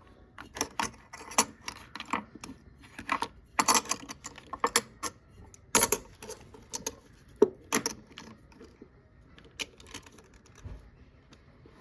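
Silver coins and rounds clicking and clinking against each other as they are handled and sorted, in quick irregular clicks that thin out over the last few seconds.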